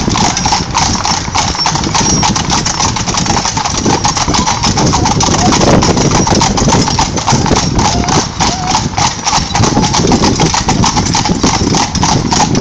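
Hooves of three harnessed horses pulling a carriage, clip-clopping on a tarmac road in a dense, continuous run of strikes.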